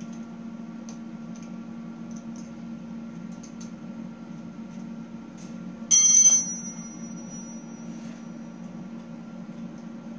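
Steel wire shopping-cart basket being handled: faint ticks of the wire over a steady low hum, then about six seconds in, a single loud metallic clang that rings on with a high bell-like tone fading over about two seconds.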